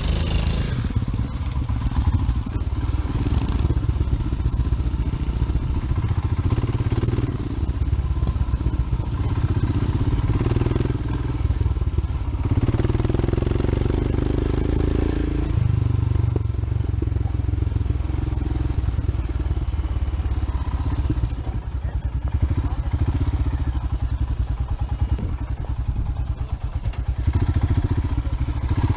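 Royal Enfield Himalayan's 411 cc single-cylinder engine running under way on a dirt track, heard from a camera on the bike, with a low rumble of wind and ground noise. The engine note gets stronger for a few seconds about halfway through.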